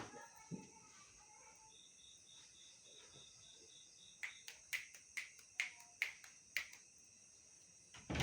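Crickets chirring steadily in the background. A pulsing high note runs for about two seconds near the start. A quick series of sharp clicks, about three a second, comes around the middle.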